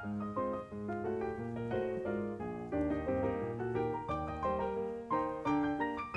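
Background music: a piano tune with a melody over regular bass notes.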